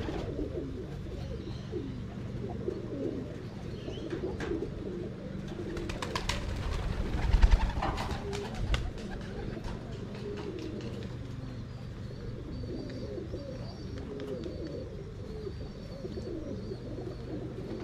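Domestic pigeons cooing over and over in low, wavering calls. A brief burst of clattering thuds comes about seven seconds in.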